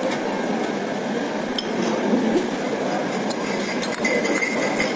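Restaurant dining-room sound: dishes, glasses and cutlery clinking, with a few sharp clinks standing out, over steady background chatter.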